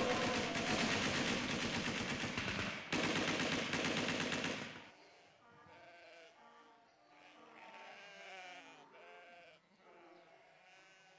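Loud, rapid automatic gunfire that cuts off abruptly about five seconds in, followed by sheep bleating faintly several times.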